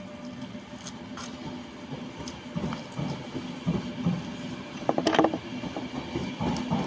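Train departing a station: a steady low running hum with irregular knocks and rumble from the wheels and cars. About five seconds in there is a short, louder pitched sound.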